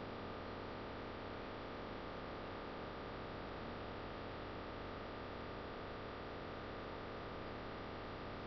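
Faint steady electrical hiss and hum of the recording's background noise, with a thin, steady high whine over it.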